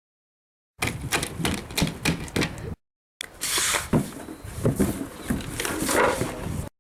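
Animals eating: rapid crunching and tapping clicks in two short cut-together clips, with abrupt silent gaps between them.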